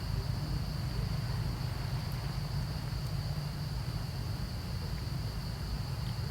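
Insects droning in one steady high pitch over a continuous low rumble, with a few faint ticks.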